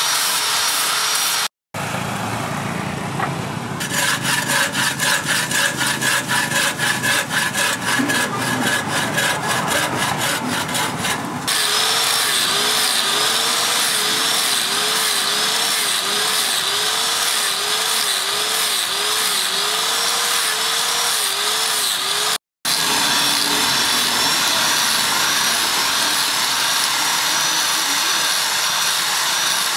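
Angle grinder fitted with a sanding disc running against a forged steel ball peen hammer head, sanding and polishing it. The grinding noise pulses rhythmically for a stretch, and later the motor's pitch repeatedly dips and recovers as the disc is pressed into the work and eased off.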